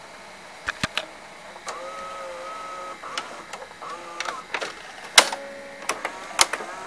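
White Westinghouse WVCP-8000 VHS player's tape mechanism clicking and whirring as the rewind ends and the transport changes mode: three quick clicks about a second in, then a short steady motor whine, more clicks and brief whines, and two sharp, louder clicks near the end.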